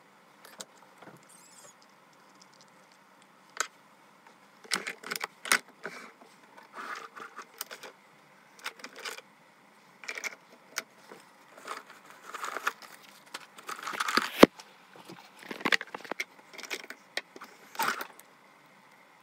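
Handling noise close to the microphone: irregular small clicks, taps and short rustles, like items being picked up and set down and hair or clothing brushing the microphone. It is nearly quiet for the first few seconds, and there is one sharper knock past the middle.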